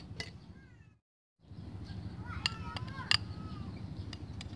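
A cat meowing: short calls that bend in pitch, one just before a brief dropout about a second in and a longer run about two and a half seconds in, with a few sharp clicks.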